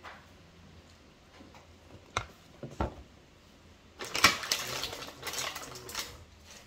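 Kitchen dishes and utensils being handled: two single knocks, then from about four seconds in a couple of seconds of clattering and clinking.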